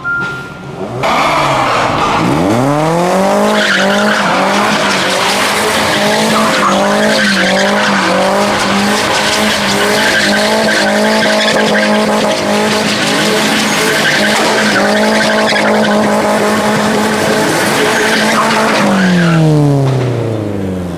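Car engine revving up and held at high revs for about fifteen seconds while the tyres spin and squeal on tarmac; the revs drop away near the end.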